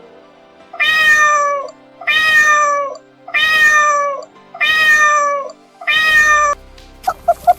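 Cat meowing five times in a row, each a long call of nearly a second that slides slightly down in pitch, about one per second; near the end a quicker run of short calls starts.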